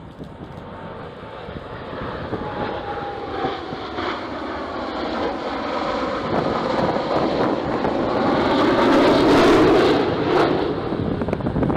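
Jet engines of Blue Angels F/A-18 Super Hornets flying past. The jet noise swells to a peak about nine to ten seconds in and then eases off. A few seconds in, a faint whine slides down in pitch.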